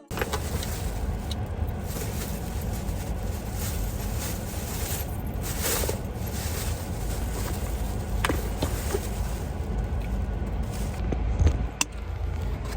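Steady low rumble and hiss of a vehicle on the move, with a couple of faint clicks in the second half.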